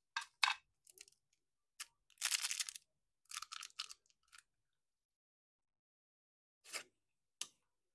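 Plastic candy wrapper crinkling and tearing as a hard candy is unwrapped close to the mouth, in a series of short rustles with a longer one about two seconds in. After a quiet stretch, two brief sounds near the end as the candy is in the mouth.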